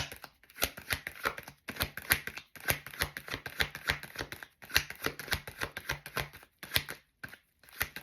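A deck of tarot cards being shuffled by hand: runs of quick, crisp card clicks in several bursts, broken by short pauses.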